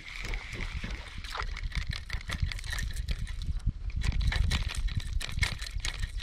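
Water trickling and splashing close around a kayak, with irregular small clicks and knocks and a low rumble that swells toward the middle.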